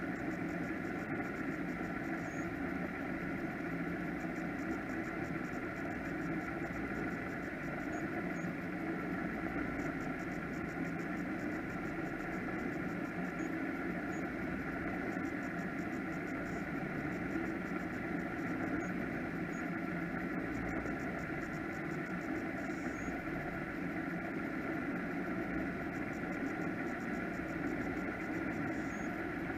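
Offshore powerboat engines idling, an even, unchanging hum.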